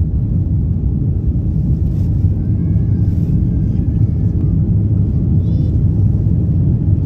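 Steady low rumble of an airliner in flight, jet engines and airflow heard from inside the cabin.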